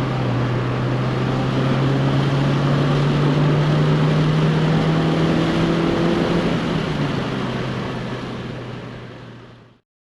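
Car engine running with steady hum and road noise, fading out near the end.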